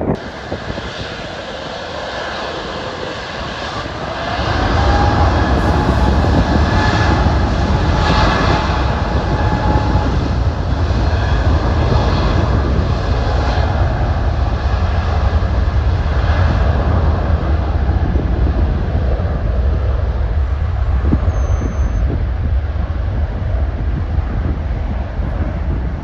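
Jet engines of an Air Caraïbes Airbus A350 at takeoff power on the takeoff roll: a loud, steady, deep rumble with a rushing hiss that sets in about four seconds in, with a faint rising whine shortly after it starts.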